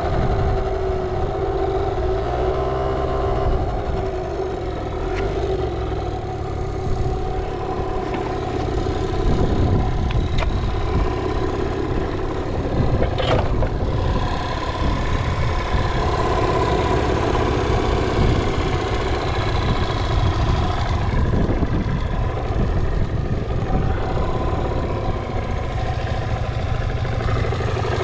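Suzuki Street Magic 50 scooter's small two-stroke engine running steadily, its pitch drifting up and down a little. It runs without any abnormal noise, as the seller states.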